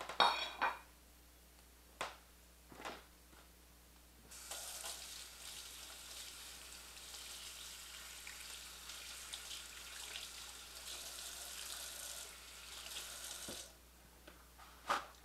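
Kitchen tap running steadily for about nine seconds, turned on a few seconds in and shut off near the end. A brief clatter of a plate or pan at the very start.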